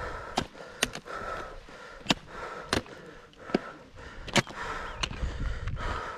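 A hiker's boots stepping on a rocky mountain path, a sharp crunch or tap about every half second to second, with breathing heard between the steps.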